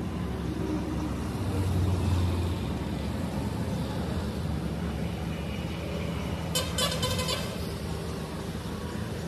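Motor vehicle engine running nearby, a steady low rumble that swells about two seconds in, with a quick rattling run of clicks about seven seconds in.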